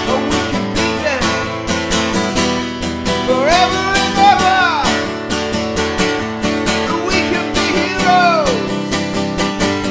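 Acoustic guitar strummed in a steady rhythm, with a wordless melody sliding up and down over it twice, about three seconds in and again near the end.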